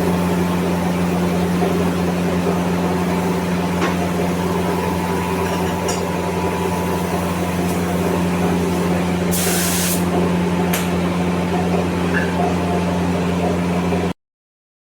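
Steady mechanical hum with a brief hiss from a paint spray gun about two-thirds through, during bumper repainting. All sound cuts off abruptly near the end.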